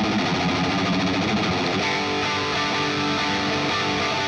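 Electric guitar with Seymour Duncan Jupiter humbuckers, tuned to drop C, playing a distorted riff of changing notes and chords through a high-gain Revv Generator amp.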